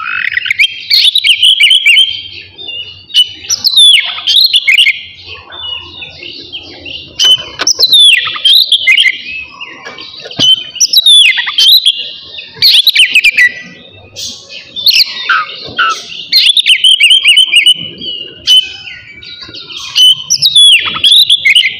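Oriental magpie-robin singing: loud, varied phrases of downward-sweeping whistles and rapid trills, a new burst every couple of seconds with short pauses between.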